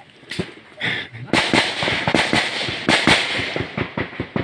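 Small-arms gunfire: a rapid, irregular run of sharp cracks, densest in the middle of the stretch.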